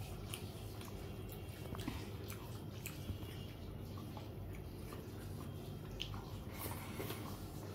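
Faint wet squelches and small clicks of eating by hand: fingers mixing and squeezing rice with curry on a plate, and chewing, over a low steady hum.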